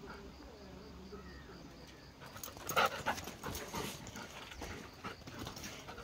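Two dogs play-fighting, panting, with a flurry of short sharp scuffling sounds starting a little past two seconds in, loudest near three seconds.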